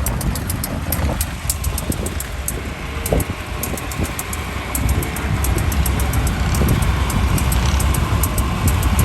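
Vintage farm tractor engine running hard under load in a tractor pull, a low rumble that grows louder about five seconds in.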